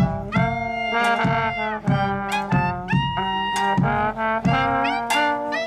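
Small street band playing a tune: two slide trombones and a clarinet together, held and moving notes over a steady beat about twice a second.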